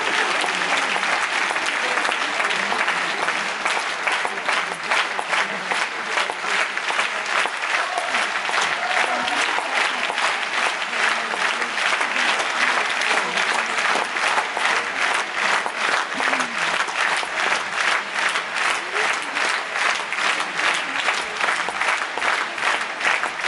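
A large audience applauding. The scattered clapping falls into loud rhythmic clapping in unison about four seconds in, and keeps a steady beat.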